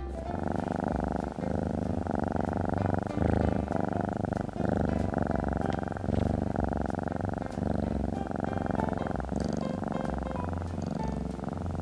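Domestic cat purring steadily, the rapid rumble rising and falling with each breath about once a second.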